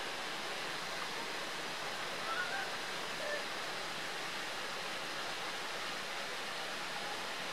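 Steady rushing noise, with a few faint brief sounds between two and three and a half seconds in.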